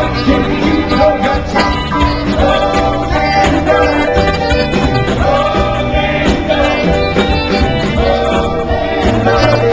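Live band music with a woman singing lead over electric guitar and drums, played at a steady beat.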